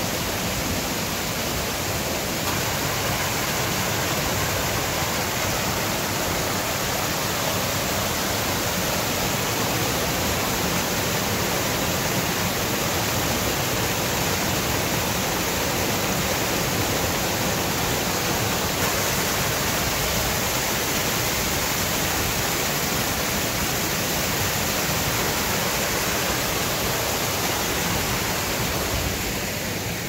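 A 45-foot waterfall in full flow, its water pouring onto rocks in a steady, even rush, easing off slightly near the end.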